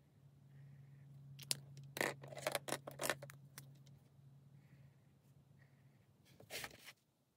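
Fine-tipped rollerball pen drawing quick strokes on sketchbook paper: a run of short scratchy strokes about one and a half to three and a half seconds in, and another couple near the end.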